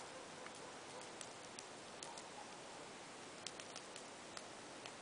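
Burning dried virgin's bower vine crackling faintly, with scattered, irregular small ticks and pops.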